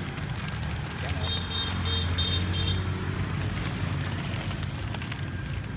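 Passing road traffic: a steady engine hum that swells about a second in, with a quick run of about six short high beeps during the swell.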